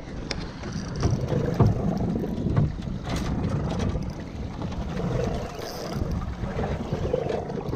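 Small fishing boat at sea: a steady low rumble with water noise and wind buffeting the microphone, and a few short knocks about two to three seconds in.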